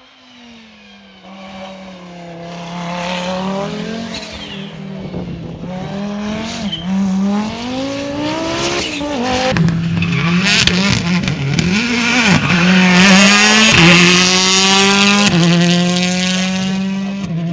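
Rally car engine revving hard, its pitch rising and falling again and again as it is driven on and off the throttle. It grows steadily louder as the car comes closer, loudest about two-thirds of the way through.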